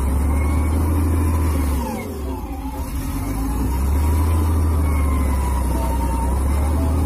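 SDLG L956F wheel loader's diesel engine working under load as the machine pushes through mud, with a whine that rises and falls with the engine speed. The revs drop away about two seconds in and build back up a second or so later.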